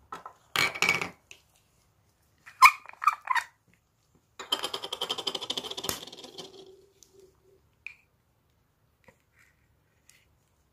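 Slime being squeezed and worked by hand, in three bursts of sticky crackling and clicking pops, the longest about halfway through, then a few faint ticks.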